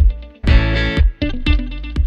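Background music: a guitar-led instrumental, chords struck about twice a second over a low pulse.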